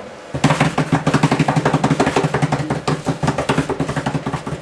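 A drum roll: fast, even strokes starting about half a second in, building suspense before a lottery name is read out.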